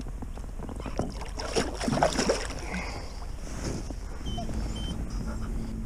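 Knocks, clicks and clothing rustle as the angler moves about on a plastic fishing kayak, loudest about one to two and a half seconds in, over a steady low rumble.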